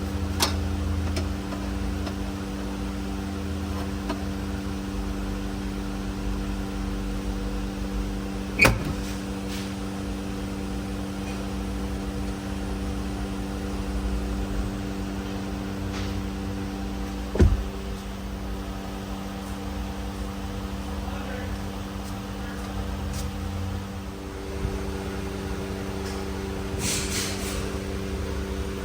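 A steady mechanical hum, with two sharp knocks about nine and seventeen seconds in.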